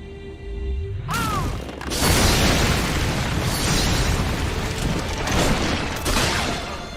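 Animated fight-scene sound effects: a sudden loud blast about a second in, followed by several seconds of dense, explosion-like rumbling noise that eases near the end.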